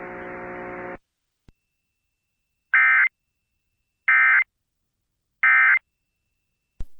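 Emergency Alert System end-of-message data bursts: three identical short, buzzy digital bursts about 1.3 seconds apart, the coded signal that closes an EAS alert. A steady hum left from the voice message cuts off about a second in, before the bursts.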